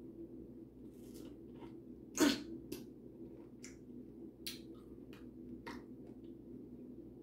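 Close-up chewing of a juicy pineapple ring: a series of short wet mouth clicks and smacks, the loudest about two seconds in, over a steady low hum.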